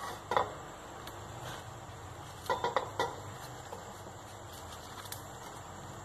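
Banana leaf being folded by hand into a parcel around the spiced quail: soft rustling with a few sharp crackles, one just after the start and a quick run of three about two and a half seconds in.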